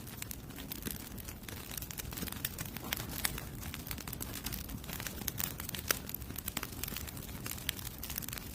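Oak firewood burning in a campfire, crackling with irregular sharp pops over a low steady rush.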